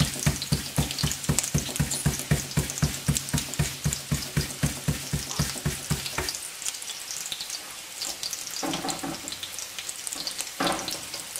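Hands patting a ball of corn masa flat into a tortilla on a plastic sheet: quick, even slaps, about four a second, that stop about six seconds in. Fat sizzles steadily in a pan throughout.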